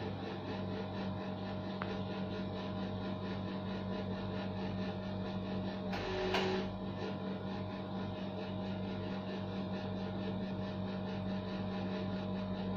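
Steady low electrical hum, with one brief soft sound about six seconds in.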